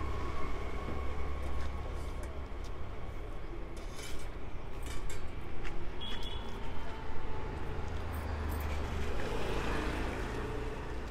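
Street ambience: a steady low traffic rumble, with a few short clinks of steel serving spoons and containers about four to five seconds in.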